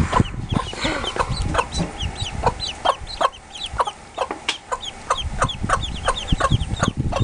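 Ducklings peeping: a steady run of short, high, falling peeps, about two to three a second.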